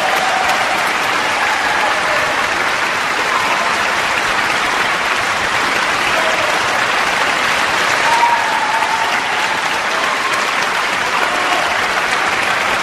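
Large concert hall audience applauding steadily after a performance, dense continuous clapping.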